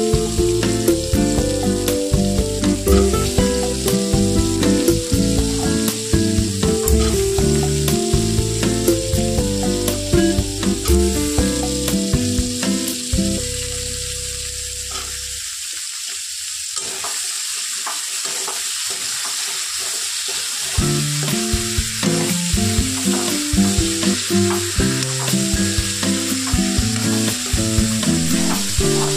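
Cubed potatoes and green beans sizzling in hot oil in a steel kadhai, stirred with a metal slotted spatula that scrapes and taps against the pan.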